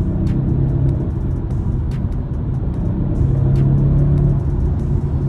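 BMW 430i's turbocharged four-cylinder engine running under way in sport mode, heard from inside the cabin with steady road rumble. The engine note gets stronger about three seconds in, then eases.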